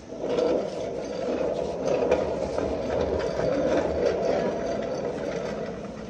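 Casters of a rolling mechanic's stool rumbling and rattling across a concrete floor. The noise starts just after the beginning, is strongest in the first few seconds and eases off near the end.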